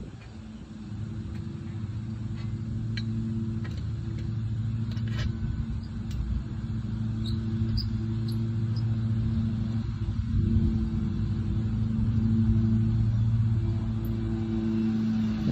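An engine idling with a steady low hum, joined by a few faint clicks.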